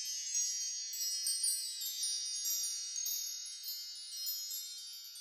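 High tinkling chimes, many small strikes ringing together in a shimmer that slowly fades away.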